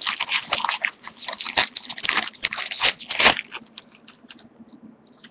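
A trading card pack's wrapper being torn open and crinkled by hand, a dense run of crackling rustles that stops about three and a half seconds in. After that there are only a few faint ticks.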